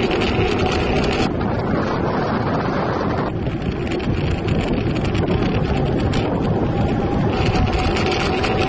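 Wind buffeting the microphone, a steady loud rush with a deep rumble and a faint steady whine that comes and goes; the hiss thins for a couple of seconds early on.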